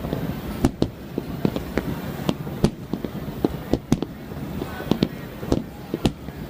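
Fireworks shells bursting in quick succession during a fireworks finale: many sharp bangs at irregular spacing, several a second, over a continuous rumble of further bursts.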